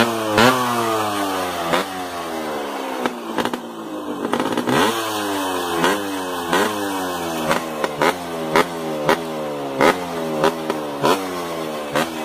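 Yamaha 125 two-stroke single-cylinder dirt bike with an FMF PowerCore 2 silencer, revved over and over. Each throttle blip shoots the pitch up and lets it fall back, with a sharp crack at many of the peaks, coming faster, about two a second, after the first few seconds.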